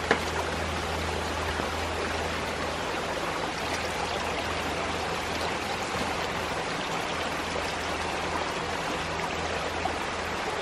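Shallow rocky creek flowing steadily, an even, unbroken rush of water.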